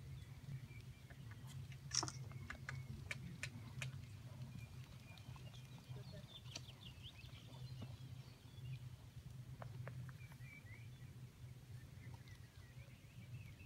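Faint outdoor ambience: small birds chirping in short bursts over a steady low hum, with a few sharp clicks about two to four seconds in.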